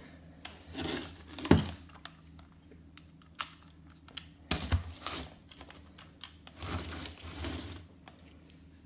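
Hands handling the plastic body of a Dyson V6 handheld vacuum and its new battery pack: irregular plastic clicks, taps and brief rustles, with one sharper knock about one and a half seconds in.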